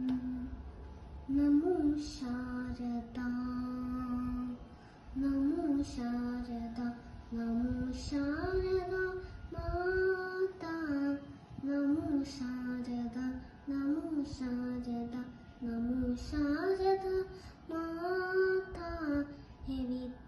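A young boy singing solo: a melody of held notes with pitch slides and ornaments, sung in phrases with short pauses between them.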